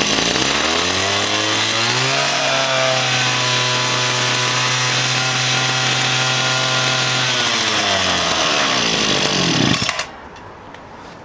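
Small engine of a Zenoah PE250 engine pump running at speed after its engine section was repaired. The pitch rises over the first two seconds, holds steady, then falls away, and the engine stops about ten seconds in.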